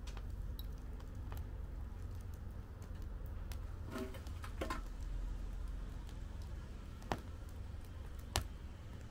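Wood fire in a fire pit crackling: scattered small clicks, a cluster of pops about four seconds in and two sharper pops near the end, over a low steady rumble.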